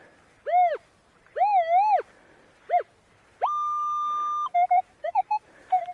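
Minelab Manticore metal detector tones over a target. First come a few short beeps that rise and fall in pitch, then a steady higher tone held for about a second midway, then several quick short lower blips near the end. It is a mixed, inconsistent signal: all sorts of signals.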